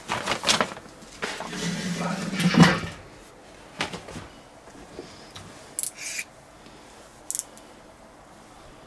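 Clattering and scraping handling noises for about three seconds, with a brief low drone in the middle, followed by a few scattered clicks.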